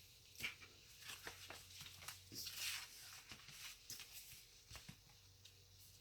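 Faint handling of paper and stickers on a desk: scattered light clicks and taps, with a brief papery rustle about two and a half seconds in.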